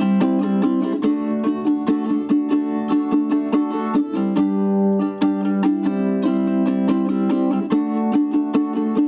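Ko'olau ukulele strung with a low G, played acoustically without amplification: a quick run of plucked notes over ringing chords.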